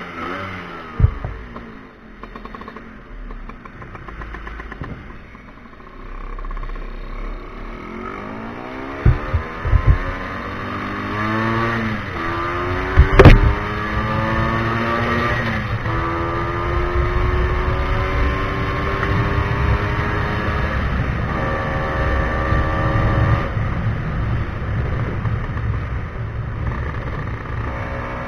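Tuned Vespa scooter engine under way, the throttle opened several times so that its note rises and falls, then holds steadier. Sharp knocks come about a second in, a few around nine to ten seconds, and a loud one near thirteen seconds.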